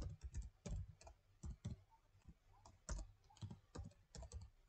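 Computer keyboard typing: faint, irregular keystroke clicks, with a pause of about a second partway through.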